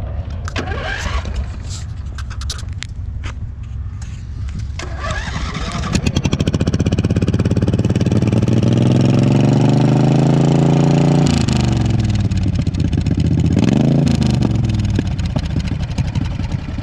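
Racing lawnmower engine: for the first few seconds, scattered knocks and rattles over a low rumble. About six seconds in, the engine picks up and revs steadily higher for about five seconds, then drops off suddenly. It gives a short blip of revs a few seconds later and keeps running.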